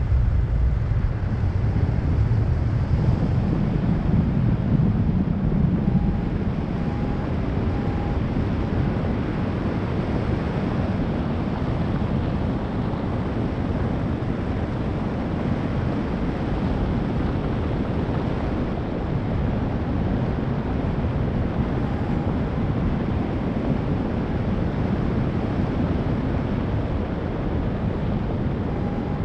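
Wind rushing over the microphone of a camera on a paraglider in flight, a steady buffeting noise that is a little stronger in the first few seconds.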